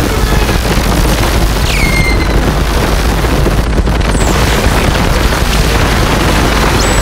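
Experimental electronic noise music: a loud, dense wall of hiss and low rumble, with two quick falling whistles about two and four seconds in.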